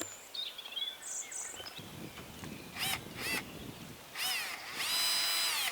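Faint bird chirps, then a power drill gives a short burst and about five seconds in spins up to a steady whine at one pitch.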